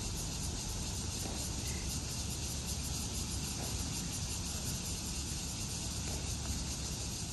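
Steady outdoor ambience: a low rumble under a high, even insect drone, with no distinct events standing out.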